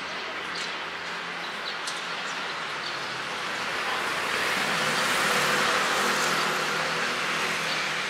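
Street ambience as a road vehicle passes close by: its tyre-and-engine noise swells about four seconds in and fades away near the end. A few faint short chirps come early on.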